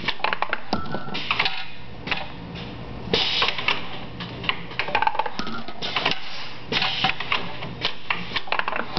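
Automated rocker-arm handling machine at work: metal rocker arms clack and clatter in quick, irregular clicks over a steady machine hum, with several short bursts of hiss.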